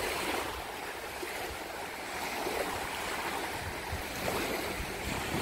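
Small waves washing onto a sandy beach, a steady wash of surf, with wind rumbling on the microphone.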